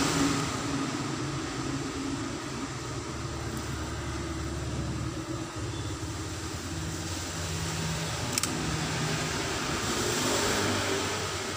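Steady background hum and hiss, with one sharp click a little past eight seconds in.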